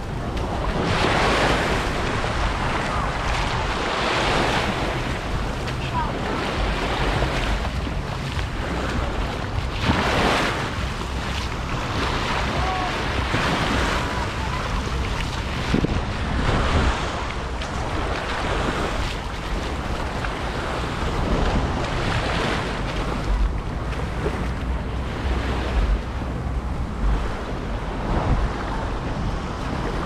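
Sea waves washing onto a beach, the noise swelling and falling back every few seconds, with wind buffeting the microphone.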